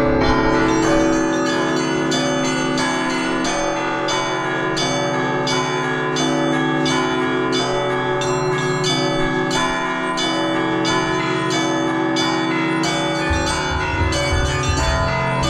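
Russian Orthodox church bells ringing: several bells of different pitches struck in a quick, regular rhythm over the lingering hum of the larger bells.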